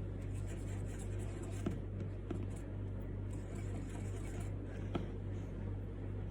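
Paintbrush strokes on a wooden fridge magnet, a faint intermittent scratchy brushing with three light taps, over a steady low electrical hum.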